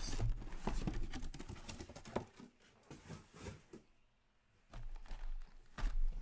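Cardboard hobby boxes of hockey cards being handled, with a flurry of light knocks, scrapes and rustles as they come out of the shipping case and are stacked. The sounds die away a little past halfway, then a few more knocks come near the end.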